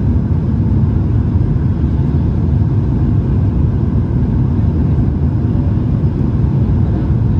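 Cabin noise of a Boeing 737 MAX 8 on final approach, heard from a window seat beside its CFM LEAP-1B engine: a loud, steady low rumble of engine and airflow, with a few faint steady high tones over it.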